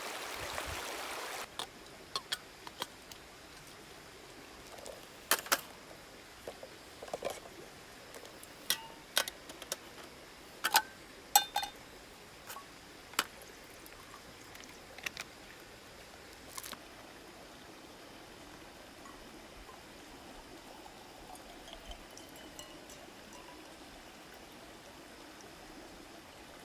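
A louder rushing hiss cuts off after about a second and a half. Then come irregular sharp clicks and clinks, a dozen or more, loudest through the middle and thinning out after about 17 seconds, over a faint steady hiss.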